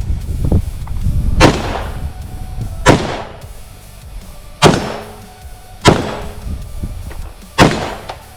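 Five single gunshots, fired at uneven intervals of one to two seconds, each with a short echo.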